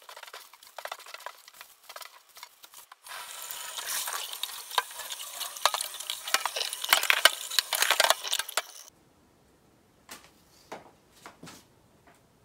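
Kitchen tap water running into a white plastic bowl in a stainless-steel sink, with clatter and knocks as the bowl is rinsed. The water starts about three seconds in and cuts off abruptly around nine seconds. Light clicks of debris being scooped from the steel sink come before it, and a few faint clicks after.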